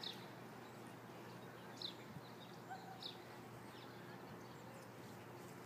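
A few short, high bird chirps over faint, steady outdoor background noise.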